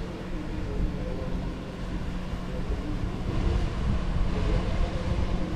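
A motor humming steadily, with wind rumbling on the microphone.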